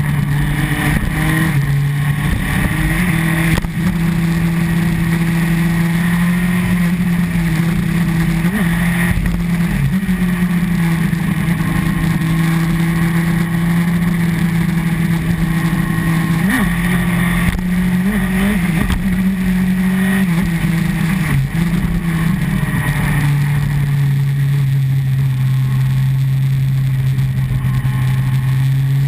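Honda CBR954RR Fireblade's inline-four engine running under way. The engine note holds fairly steady and shifts in pitch several times with throttle and gear changes, settling lower near the end. Wind rushes over the onboard microphone throughout.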